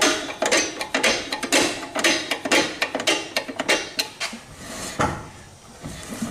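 Packard rear drum brake adjuster being backed off notch by notch with a tool after tightening until the wheel locked, to free the shoes from the drum: a run of sharp metallic clicks, a little over two a second. Near the end the clicking stops and the wheel is turned by hand, a softer rub.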